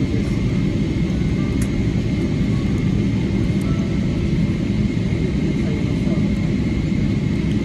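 Boeing 777-300ER cabin noise heard beside its GE90 engine while taxiing after landing: a steady, dense low rumble with a thin steady high tone over it.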